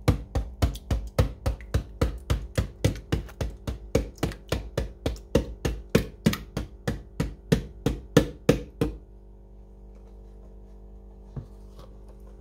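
Plastic milk bottle glugging as thick, curdled milk pours out into a stainless steel sink, in a fairly even run of sharp glugs about three a second that stops about nine seconds in.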